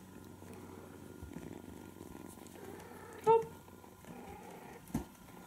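Kitten purring faintly, with a brief pitched squeak about three seconds in and a soft tap near the end.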